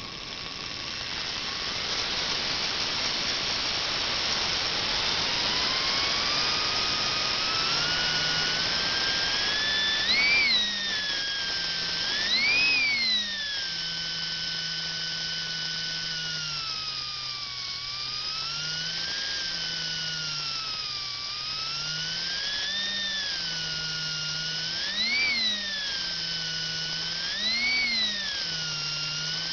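Falcon slot car electric motor in a Champion Turboflex chassis running free, driving the rear axle through its pinion and crown gear: a high whine. It builds up over the first several seconds, then swings up and down in pitch, with a few brief higher surges.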